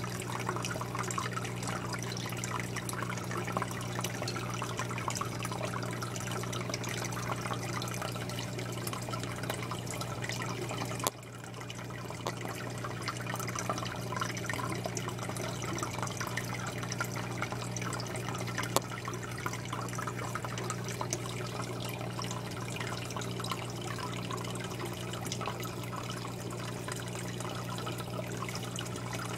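Aquarium air bubbler and filter: steady bubbling and trickling water over a constant low hum. There is a brief click with a small drop in level about eleven seconds in, and another click a few seconds later.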